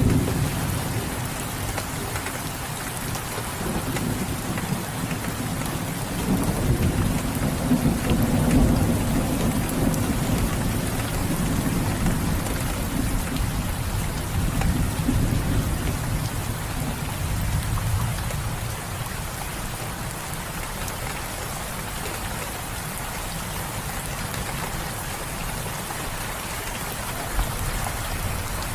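Steady rain hissing and pattering, with a low rolling rumble of distant thunder through the first half that fades out about two-thirds of the way in.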